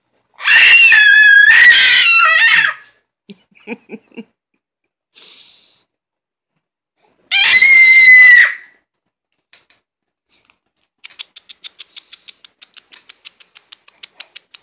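Baby screeching: two loud, very high-pitched squeals, the first about two seconds long and the second just over a second, with a few small grunts between them. Near the end comes a quick run of light clicks, about eight a second.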